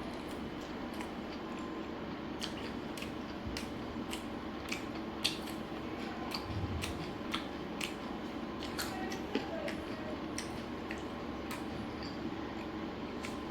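A person eating chicken biryani close to the microphone: irregular sharp clicks and smacks of chewing and handling food, over a steady low hum.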